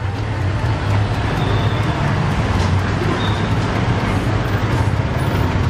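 Steady road-traffic noise with a low engine hum, and faint voices in the background.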